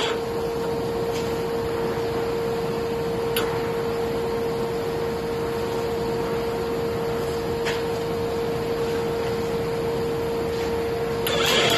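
MIG welder set to double pulse mode, giving a steady high-pitched hum over a hiss, with two faint clicks.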